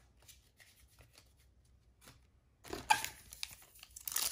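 Faint taps of trading cards being set down. Then, a little under three seconds in, a crinkling rustle starts as a foil-wrapped trading card pack is picked up and gripped for opening.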